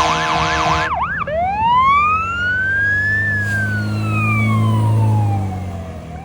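Emergency vehicle's electronic siren running code. It gives a fast yelp for about the first second, then switches to a slow wail that rises, falls away, and starts rising again near the end. A low vehicle rumble lies under it, and the sound fades near the end.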